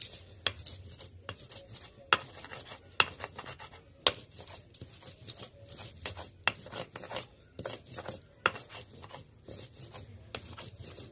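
Stone-on-stone grinding on a sil-batta: a hand-held grinding stone scraped back and forth over a grooved stone slab, crushing fresh green chillies, coriander and garlic leaves into chutney. The scraping is broken by sharp stone knocks about once or twice a second.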